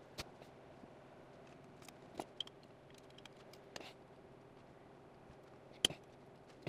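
A few faint, sharp metallic clicks of valve-train assembly on a Triumph TR4 cast-iron cylinder head: the valve spring compressor and the valve springs, collars and keepers clicking as each valve is fitted. The loudest click comes near the end.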